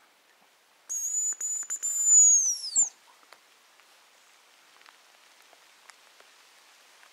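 Hazel grouse decoy whistle sounding the hazel grouse's call: a very high, thin whistle held for about two seconds with a few brief breaks, ending in a falling glide. It is blown to lure a hazel grouse.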